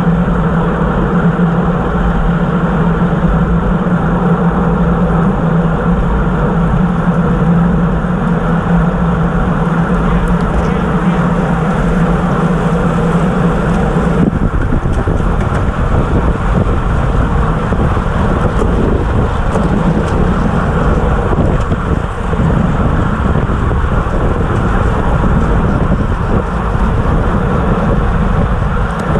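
Wind rushing over the microphone of a camera on a racing bicycle moving at speed, mixed with tyre and road rumble. A steady hum under it stops abruptly about halfway through, and the noise turns rougher from there.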